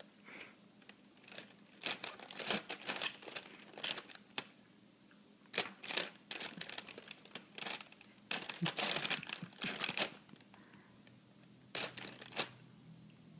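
Clear plastic bag of tortilla chips crinkling in irregular bursts as a baby's hand grabs and squeezes it, with pauses between handfuls.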